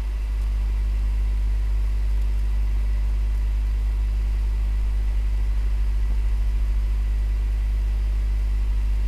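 Steady low electrical hum with a few faint, even tones above it, unchanging throughout.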